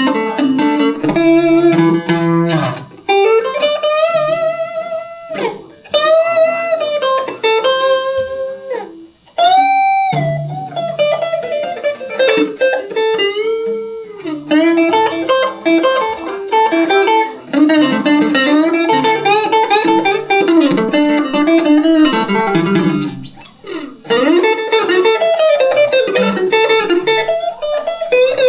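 Electric blues guitar solo on a Van Zandt Telecaster through a Roland JC-120 amp: single-note lead lines with string bends and held notes, over some low bass notes.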